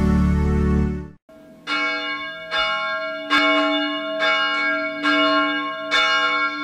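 A short intro jingle cuts off about a second in. Then church bells ring out, struck about once a second, each stroke ringing on into the next.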